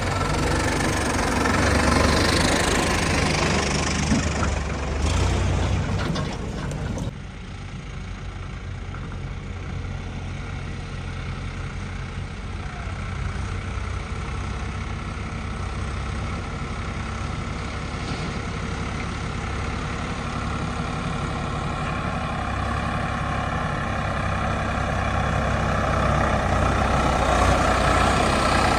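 Heavy diesel machinery engine running. For the first seven seconds it is louder and rougher, then it drops suddenly to a steadier hum that slowly grows louder toward the end.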